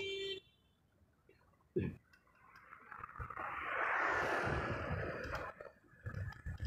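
Traffic on a city road: a short beep at the start, then the rush of a vehicle passing close, swelling over about two seconds and fading away.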